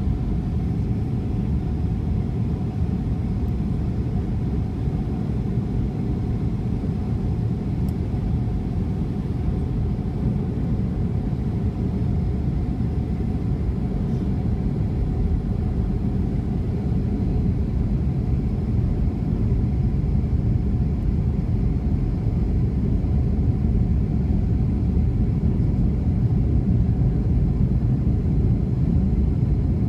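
Steady rumble of an airliner's engines and rushing air heard inside the passenger cabin on final approach, with a steady hum over the top; it grows slightly louder toward the end.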